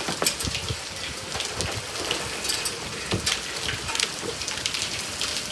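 Rain falling steadily, with many sharp drop hits on a nearby surface.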